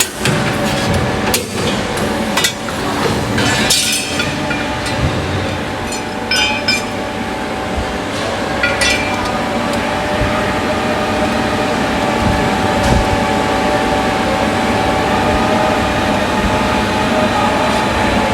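Hydraulic angle iron flange punching machine running an order: a steady machine hum with a constant tone, broken by sharp metal clanks and clinks from the steel angle being punched and cut. The clanks come several times in the first nine seconds, then only the steady running continues.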